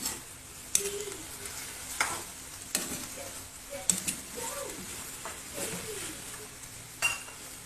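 Food sizzling in a frying pan while a utensil stirs it, with a few irregular sharp knocks of the utensil against the pan over a steady hiss.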